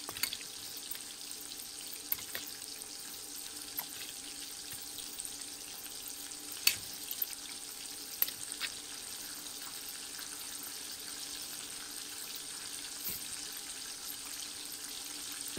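Chicken pieces sizzling steadily in hot oil in a small pan, with a few sharp clicks as a metal spoon turns them against the pan.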